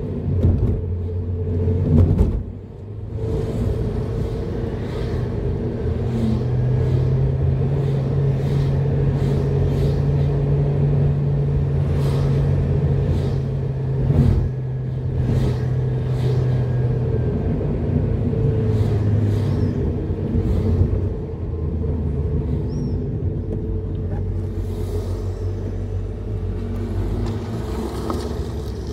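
Car engine running and tyre and road noise while driving slowly in traffic. The engine note rises about six seconds in, holds, and falls back after about seventeen seconds, with a few short knocks along the way.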